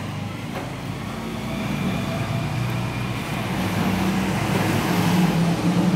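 A motor vehicle's engine running steadily and growing louder.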